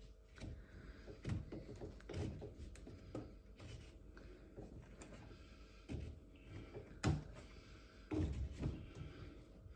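Irregular light knocks and thuds of pipework and tools being handled during plumbing work, with the sharpest knock about seven seconds in and a quick cluster shortly after eight seconds.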